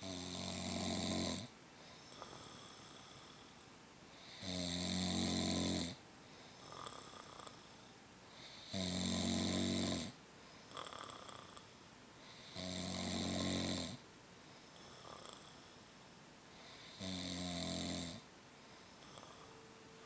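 Snoring in a steady rhythm: five loud, long snores about four seconds apart, each followed by a softer, shorter breath sound.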